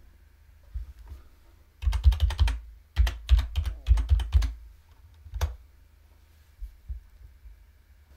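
Computer keyboard being typed on: two quick runs of key clicks as a password is entered, then one more single click about five seconds in.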